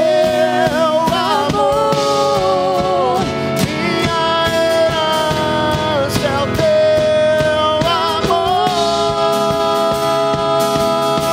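Live worship band playing a Portuguese-language worship song: a woman sings long held notes that waver in pitch over electric guitar, bass, acoustic guitar, keyboard and drums.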